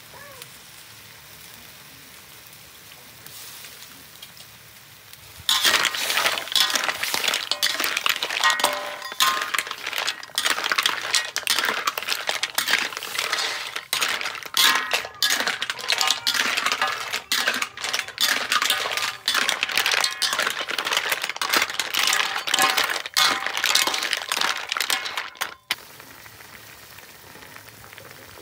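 Clam shells clinking and clattering against each other and the metal wok as they are stirred and tossed, a dense run of clinks that starts about five seconds in and stops suddenly near the end. Before it, a faint steady sizzle from the pan.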